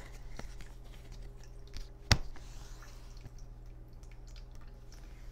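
A low steady hum with faint scattered ticks, and one sharp click about two seconds in.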